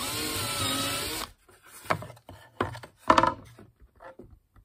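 Cordless drill running for just over a second as it bores a pilot hole for a screw in a wooden board, its motor pitch wavering under load, then stopping. A few sharp knocks and clicks follow, the loudest about three seconds in.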